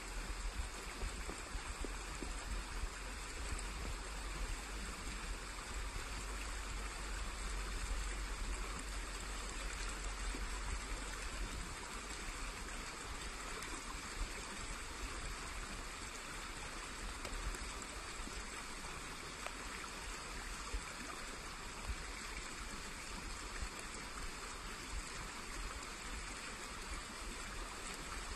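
Steady rushing of flowing water from a small woodland stream, even throughout, with a low rumble underneath.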